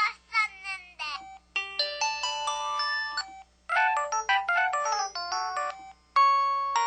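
SKY IM-8700 mobile phone's built-in sound effects playing one after another: a warbling, wavering tone, then two short melodic electronic jingles, and a third one starting near the end, each separated by a brief gap.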